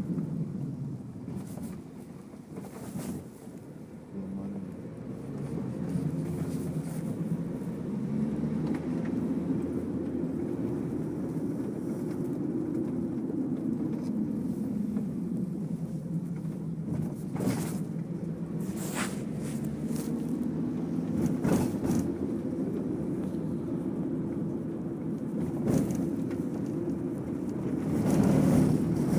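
Steady low rumble of a vehicle in motion, heard from inside during a ride, with a few short knocks and rattles in the second half.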